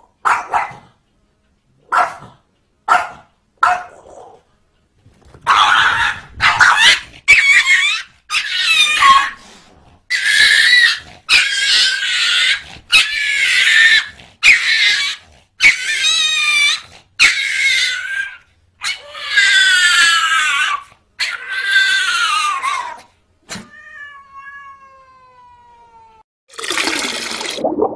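Cat yowling: a few short, sharp calls, then a long run of drawn-out, wavering yowls about a second each in quick succession. A short burst of noise near the end.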